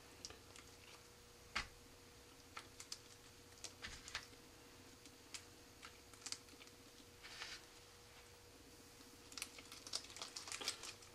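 Faint, scattered light clicks and taps of small rocket-motor parts handled in gloved hands, with a quicker run of clicks near the end. A faint steady hum underneath.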